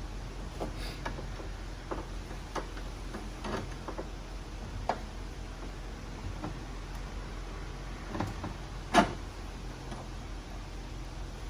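Scattered light clicks and taps, with one sharper, louder knock about nine seconds in, over a steady low hum and hiss.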